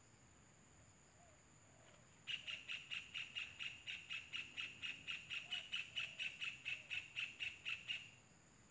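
A kingfisher calling a fast, even run of sharp notes, about four a second, starting about two seconds in and stopping near the end. A steady high insect buzz runs underneath.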